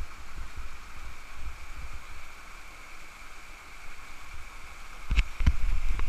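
Steady rush of a small cascade pouring into a rock pool, with low rumbling on the camera's microphone, and two sharp knocks about half a second apart near the end.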